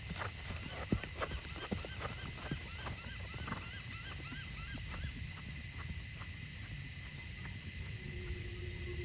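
A horse's hooves striking the sand arena at the trot, the beats fading out over the first few seconds as it moves away. A bird calls a quick run of repeated chirps, about three a second, through the first half, over a steady high whine and low rumble.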